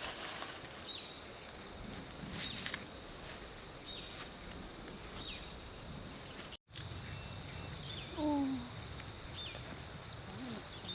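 Outdoor insect drone, a steady high-pitched hum, with a short falling chirp repeating about once a second. Just after the middle the sound cuts out for an instant, and a little later a brief lower-pitched falling call is the loudest sound.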